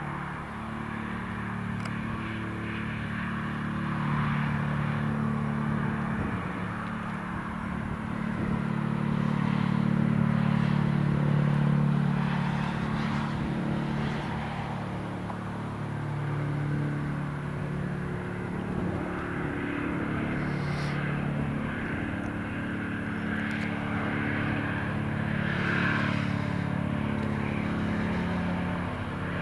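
Eurocopter EC155 twin-turbine helicopter approaching to land: a steady low rotor hum that swells and eases as it comes in, loudest about a third of the way through.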